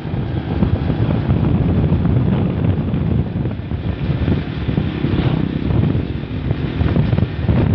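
Wind buffeting the microphone over the rumble of a vehicle moving along a road, a loud, unsteady low noise.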